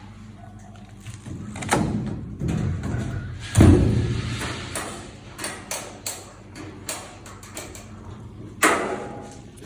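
A series of knocks and thuds over a low steady hum, the loudest thud about three and a half seconds in and a sharp knock near the end.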